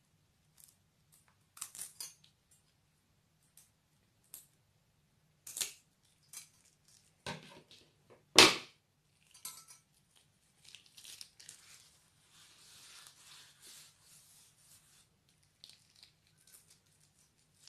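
Scissors snipping the tip off a plastic piping bag, then scattered clicks and one sharp knock about eight seconds in. After that comes a few seconds of the bag's plastic crinkling as it is squeezed empty.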